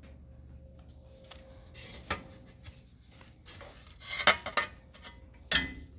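A few sharp metallic clinks and knocks from hand work on the engine: one about two seconds in, a loud cluster about four seconds in and another near the end.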